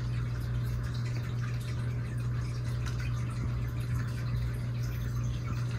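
Steady low hum with a faint hiss over it, unchanging throughout: room tone from a running machine or appliance.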